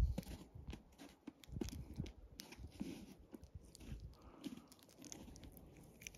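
Faint scattered clicks and rustles of hands handling a landlocked salmon and working a lure's hook free of its mouth.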